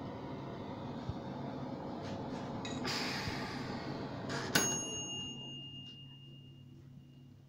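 A single bell ding about four and a half seconds in, ringing out and fading over about two seconds: the end-of-time bell of a countertop toaster oven's timer. Before it there is a brief rustling hiss, and the rest is faint room hum.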